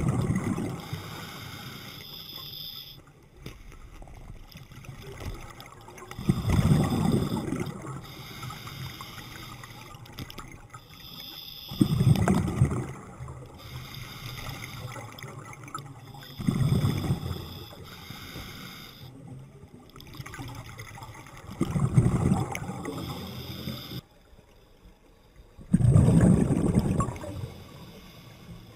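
Scuba diver breathing through a regulator underwater: a rush of exhaled bubbles about every five seconds, with a fainter hiss between the breaths.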